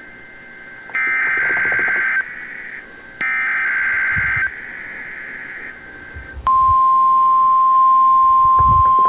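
NOAA Weather Radio Specific Area Message Encoding (SAME) header, as received over a radio: two one-second bursts of warbling digital data tones with short gaps between. About six and a half seconds in, the steady single-pitch warning alarm tone starts and holds, louder than the bursts. The whole sequence is the Required Weekly Test of the alert system.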